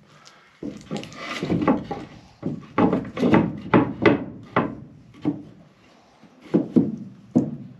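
A wooden track strip being handled and set against wooden 2x4 framing: a string of irregular wooden knocks and clunks, about a dozen.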